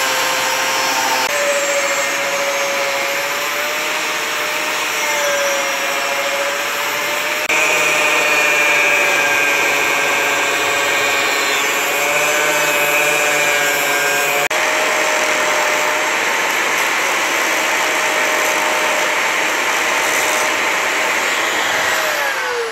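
Angle grinder with a cutting disc cutting through the steel of an old circular saw blade: a steady motor whine over the hiss of the disc grinding metal, the pitch shifting a little a few times. Near the end the whine falls as the grinder winds down.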